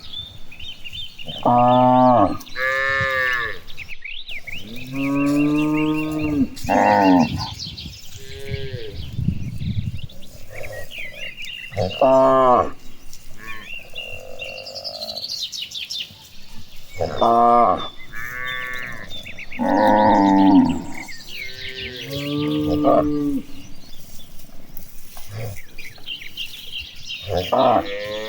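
A herd of cattle mooing again and again: about a dozen separate moos, some long and low, some higher, following one another a second or two apart.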